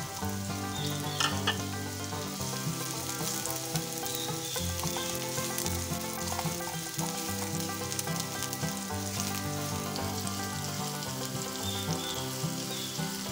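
Chopped red onion sizzling in hot oil in a small frying pan while a silicone spatula stirs it. Beneath the sizzle runs a layer of steady tones that shift in pitch in steps.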